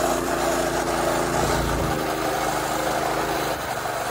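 Small single-cylinder four-stroke mini bike engine running at a steady speed as the bike is ridden, its note thinning out near the end.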